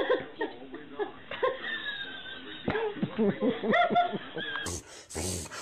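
A person laughing in short, broken fits, with a sudden burst of noise near the end.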